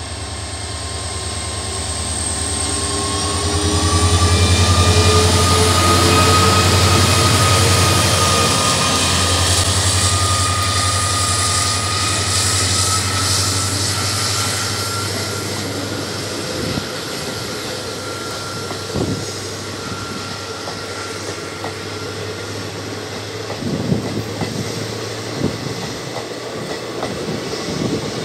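A WDP 4D diesel locomotive's EMD two-stroke engine drones as it approaches and passes at speed, loudest about four to eight seconds in, with a thin high tone above it. After that the passenger coaches roll past with a steady rumble and occasional clacks of wheels over rail joints.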